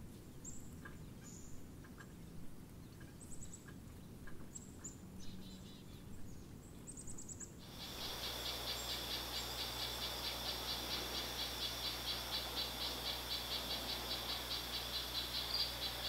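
Sparse high, thin wild-bird chirps. About halfway through they give way to a louder, steady, rapidly pulsing insect trill.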